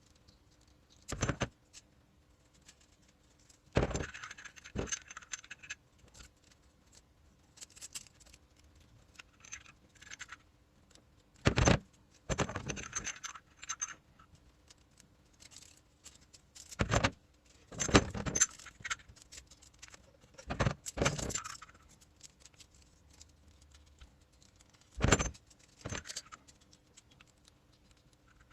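Small metal parts and tools clinking and jangling as they are handled, in a dozen or so separate bursts, some of them single sharp clinks and some short rattling clusters, over a faint steady hum.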